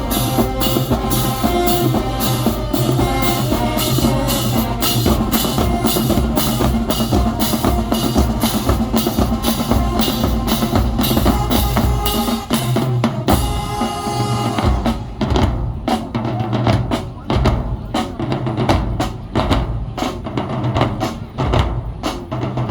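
Marching band playing: wind instruments over a steady beat of bass and snare drums. About two-thirds through, the wind instruments drop out and the drums carry on alone.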